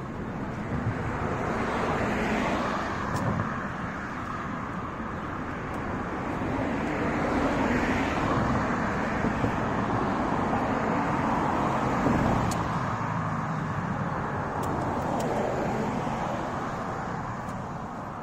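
Road traffic: several cars passing along the street, the tyre and engine noise swelling and fading as each goes by.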